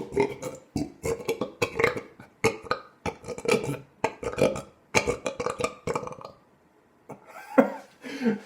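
A man belching on purpose: a run of short burps one after another, a brief pause, then another belch near the end.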